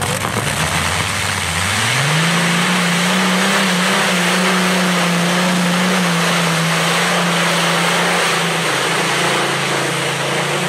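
Modified pulling tractor's big multi-stack engine revving up sharply about a second and a half in. It then holds high, steady revs under full load while pulling the sled, dropping slightly near the end.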